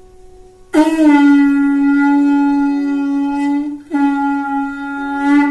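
Lip-buzzed blowing through a length of PVC pipe, used as a practice stand-in for a conch shell (shankh). It gives two long, steady horn-like notes with a brief break between them; the first lasts about three seconds.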